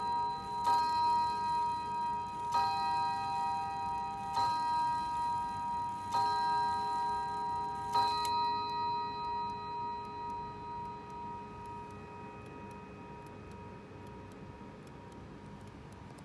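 Hermle mantel clock striking the hour on its chime rods: five even strokes, about two seconds apart, each ringing on. After the last stroke the ringing dies away and the movement's steady ticking is left.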